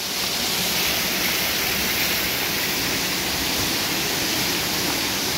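Water pouring and spraying steadily from a water-park play structure's fountains into a shallow splash pool, an even rushing noise.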